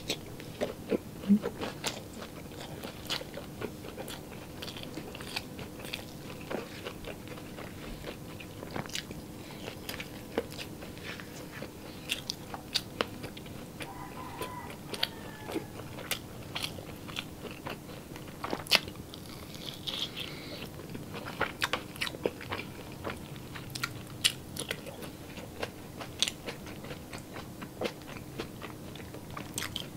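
Close-miked eating sounds: a person biting and chewing fried longganisa sausage with the mouth near the microphone, giving irregular wet smacks and crunches, over a faint steady hum.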